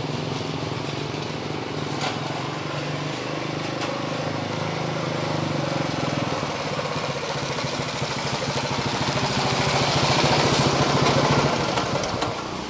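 Small motorcycle with a sidecar running as it rides up, its engine growing louder as it comes close, then easing off near the end as it pulls up.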